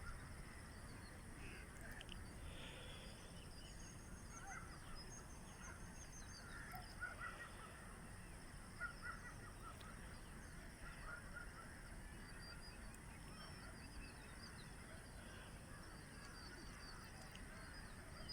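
Faint background bird calls, many short notes scattered throughout, over a steady low hiss.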